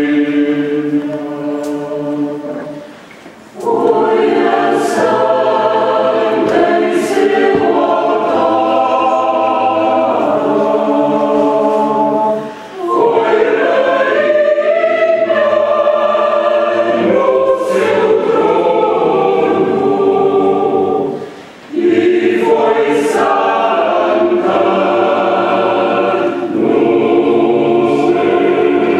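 Mixed chamber choir singing a cappella, sustained chords in long phrases, with three short breaks for breath between them.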